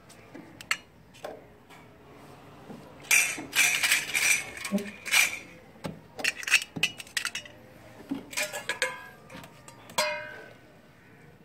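Stainless-steel spoons and plates clinking, clattering and scraping as they are handled, ending near the end with a sharp clang of a steel plate that rings on briefly.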